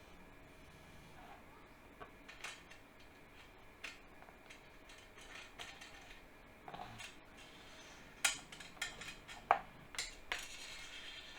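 Faint, irregular clicks and clinks of small metal parts and hardware being handled during 3D printer assembly, with the sharpest knocks about eight and nine and a half seconds in.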